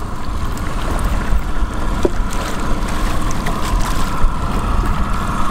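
Chinook salmon thrashing and splashing at the surface beside the boat as it is netted. Under it run the boat's steady engine hum and wind on the microphone.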